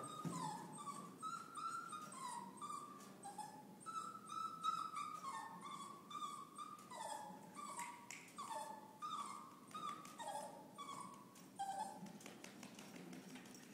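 Small fluffy dog whining over and over in short high cries that dip in pitch, with light clicks of its claws on the perforated metal stair treads as it steps down.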